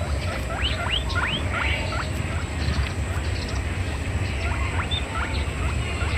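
A flock of small birds chirping, many short upward-sweeping calls overlapping one another, over a steady low rumble.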